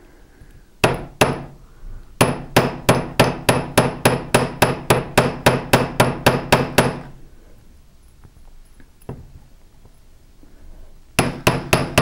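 Domed chasing hammer striking copper wire laid on an iron bench block, with a metallic ring to each blow: two taps, then a steady run of light strikes about four a second for nearly five seconds, and another quick flurry near the end. The blows paddle out, flattening and flaring, the end of a wire hook clasp.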